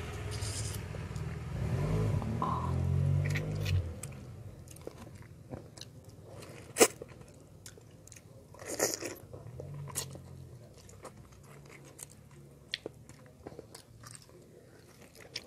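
Close-up wet biting, sucking and chewing of ripe mango flesh, with scattered short smacks and clicks. The loudest is one sharp click about seven seconds in. A low rumble underlies the first four seconds.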